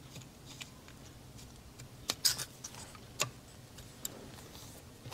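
Light clicks and clinks of small metal parts being handled and pushed into an aluminium motorcycle engine crankcase, a few scattered taps with the sharpest ones about two seconds and three seconds in.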